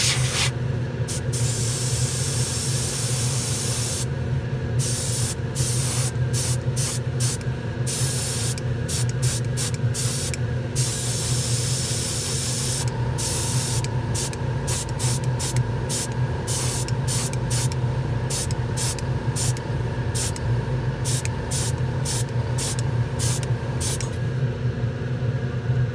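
Airbrush spraying paint: one longer spray of hiss, then many short on-off bursts as the trigger is pulled and released, over a steady low motor hum.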